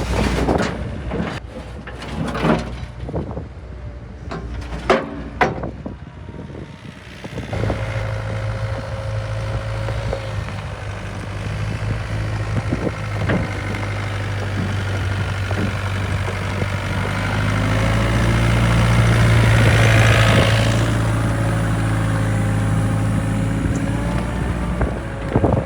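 A series of knocks and clatters. About seven seconds in, the Yanmar B55W-2 wheeled excavator's diesel engine comes in and runs steadily, growing louder for a few seconds about three-quarters of the way through before settling again.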